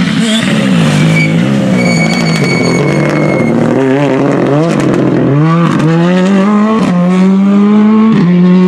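Ford Fiesta rally car's engine under hard throttle. The note wavers up and down through a corner, then climbs and drops back with about three quick upshifts in the second half.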